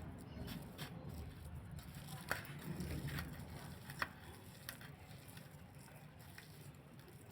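Light kitchen handling sounds: a few sharp clicks and taps, the clearest about two seconds in and about four seconds in, over a low steady hum.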